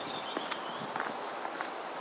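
A small songbird singing a fast, high trill that starts about half a second in, with a thin high whistle just before it, over a steady hiss of wind noise and a few soft clicks.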